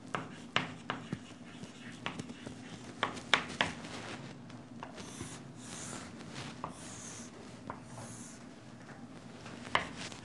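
Chalk on a chalkboard. First come sharp taps and clicks as letters are written. Then, from about five to eight seconds in, come four longer scraping strokes as straight lines are drawn, with a few taps again near the end, over a low steady hum.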